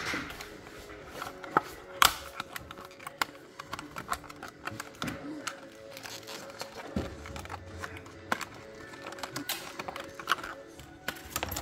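Irregular light clicks and taps of small tools and parts being handled during a smartwatch battery repair, the sharpest about two seconds in, over a faint steady hum.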